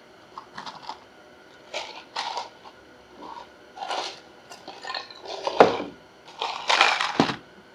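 Whiskey glasses handled on a table: short knocks and clinks of glass, with liquid poured from one glass to another and then sipped. The loudest is a sharp glass knock a little past the middle.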